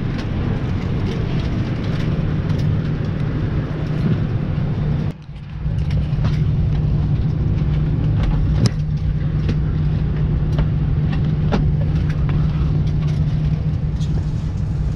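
Steady low hum inside a parked Airbus A320 cabin, with scattered sharp clicks and knocks. The sound drops out briefly about five seconds in.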